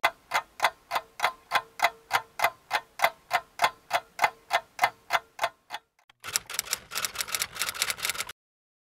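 Steady ticking like a clock, about four ticks a second. About six seconds in it turns into a faster, denser run of clicks, which cuts off suddenly near the end.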